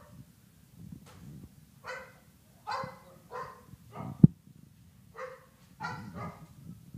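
Boxer dog barking repeatedly in short, separate barks, about seven of them. A single dull thump comes about four seconds in, louder than the barks.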